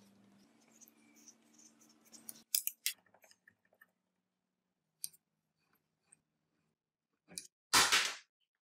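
Sharp metal clicks and clinks from the rusty iron parts of an antique geared hand drill being handled and taken apart, with a cluster of loud clicks about two and a half seconds in, scattered small ticks, and a loud rasping noise of about half a second near the end.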